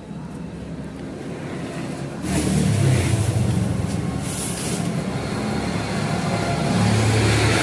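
A motor vehicle's engine rumble that grows louder about two seconds in and keeps going, as a vehicle passes close by.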